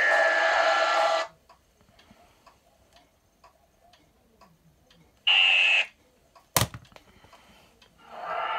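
DVD menu sound effects through a TV speaker: a loud whooshing noise with a falling whine that cuts off about a second in, then faint steady ticking. A short burst of the whoosh comes about five seconds in, then a sharp click, and the whooshing noise swells again near the end.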